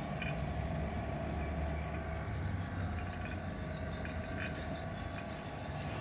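Refrigeration vacuum pump running with a steady hum, evacuating an air conditioner's refrigerant lines.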